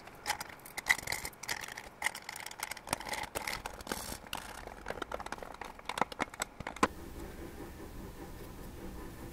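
Small metallic clicks and rattles of a screwdriver and screws against a cooling fan's wire guard and frame as the fan is screwed onto an intercooler radiator. The clicks come in irregular clusters and stop about seven seconds in.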